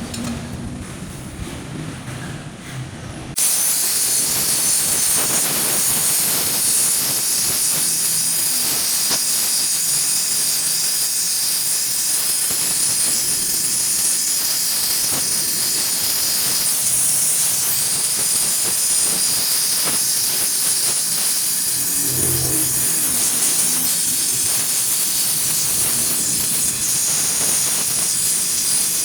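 Gas welding torch flame hissing steadily, starting suddenly a few seconds in after a low rumble.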